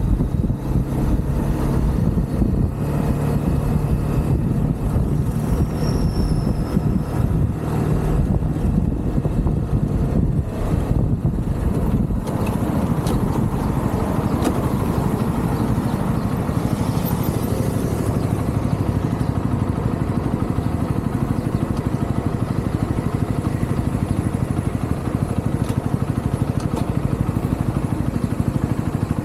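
UM Renegade Commando 125 motorcycle's 125 cc engine running steadily while riding, with wind and road rush mixed in.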